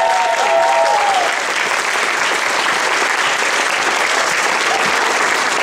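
Audience applauding steadily, with a few voices calling out over it in the first second or so.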